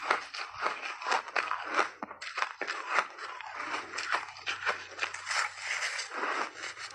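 Refrozen ice being bitten and chewed in big mouthfuls, close up: a dense, irregular run of sharp crunches, several a second, with a brief lull a little after two seconds in.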